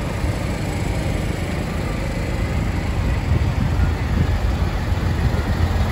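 Diesel engines of farm tractors running as they drive past one after another, getting a little louder in the second half as the next tractor comes close.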